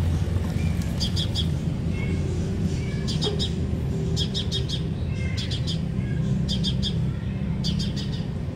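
A small bird chirping in short runs of three or four quick high notes, repeated roughly every second, over a steady low rumble.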